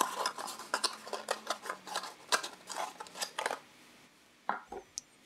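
Handling noise from unboxing packaging: a quick run of light clicks and rustles for about three and a half seconds, then quiet with a couple of small taps near the end.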